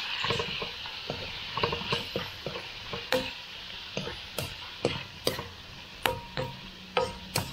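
Pork and vegetables sizzling in a hot pan as they are stirred, a utensil clinking against the pan every half second or so.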